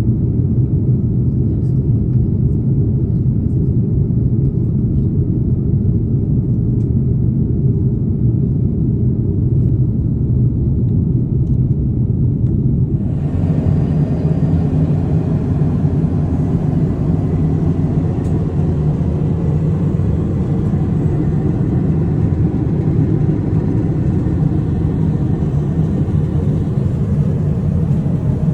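Steady, loud low rumble of jet airliner noise from an Airbus A330neo. About halfway through it changes abruptly to a brighter, hissier noise.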